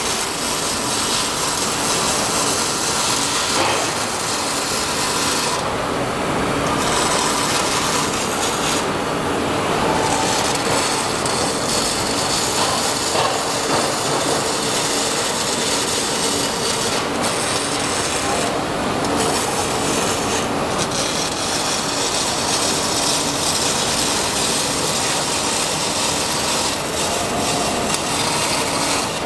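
Robotic welding arcs crackling and hissing steadily, with the arc briefly going quiet a few times between welds.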